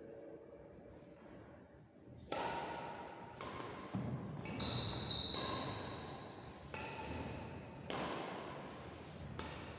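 Badminton rally: rackets striking the shuttlecock in a string of sharp cracks, starting about two seconds in and coming roughly once a second, each echoing in a large hall.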